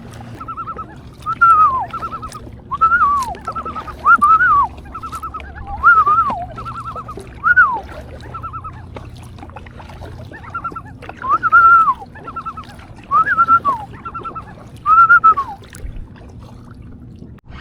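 Common loon calling at close range: a long run of about a dozen repeated phrases, each a quick stuttering run of notes followed by a slurred wail that rises and then falls.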